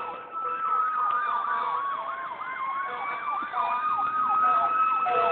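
An emergency vehicle siren in fast yelp mode, sweeping up and down about three times a second, over a long steady chord of held horn-like tones.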